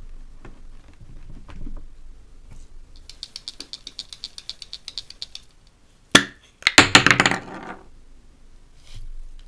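Aerosol spray-lubricant can shaken by hand, its mixing ball rattling rapidly inside for about two seconds. Then a sharp click and a louder clattering burst about a second long, with light knocks on a wooden block at the start.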